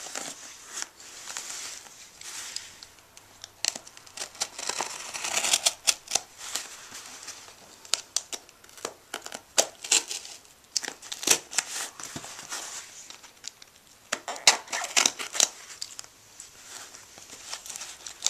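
A taped cardboard parcel being opened by hand: a snap-off craft knife slitting the packing tape, then tape tearing and cardboard flaps rustling. Many short, irregular crackles and clicks, with a few longer scratchy tearing stretches.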